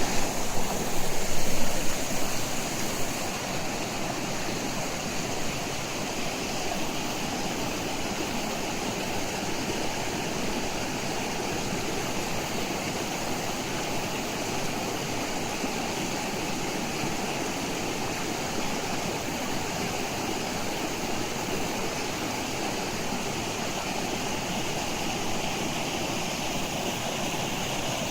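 Steady rushing of flowing stream water, a little louder in the first few seconds, then even.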